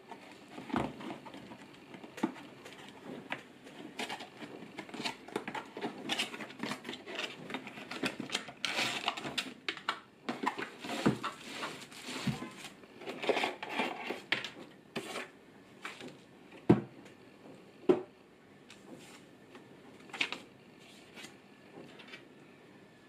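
Unboxing handling noise: a cardboard box being opened and the plastic-wrapped sound bar slid out, with rustling and crinkling of the plastic wrap and irregular clicks and scrapes. Two sharp knocks, the loudest sounds, come about two thirds of the way through as the bar is set down on the wooden desk.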